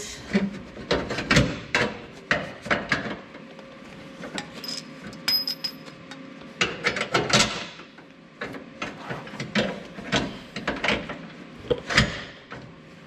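Metal lower-link skid bracket and hand tools clanking and knocking against the truck's frame in short, irregular strikes as the bracket is fitted up for bolting, with a brief metallic ring about five seconds in.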